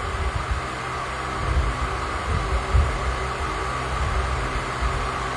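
Steady background hum with an uneven low rumble underneath, with no clear single event.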